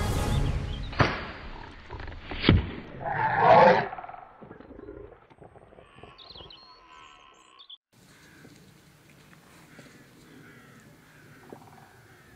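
Music fades out, then two sharp knocks and a loud animal roar about a second long. Faint outdoor ambience with small chirps follows.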